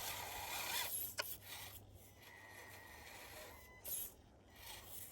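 Axial SCX24 micro RC crawler's tyres scrubbing and slipping on snow, a faint rasping scrape, with a thin high whine from its small electric motor coming and going. The tyres are losing grip on the slippery snow.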